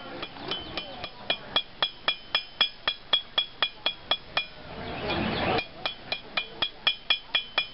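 Blacksmith's hammer striking an iron bar on the anvil horn in a quick steady rhythm, about four blows a second, each blow with a bright metallic ring. The hammering stops for about a second just past the middle, then starts again.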